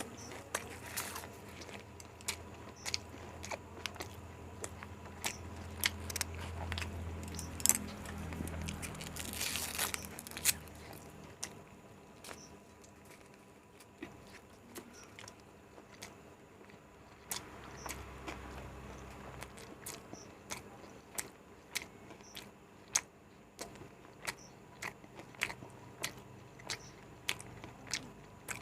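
A person chewing Indian egg rolls close to the microphone: repeated sharp mouth clicks and smacks with soft crunching as each bite is chewed, settling into about two a second in the second half.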